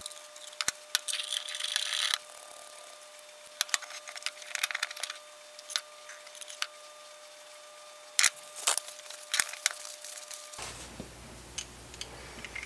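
Steel parts of a Pexto pipe wrench clicking, clinking and scraping in short bursts as they are handled and fitted together, with sharp knocks of metal on the wooden bench.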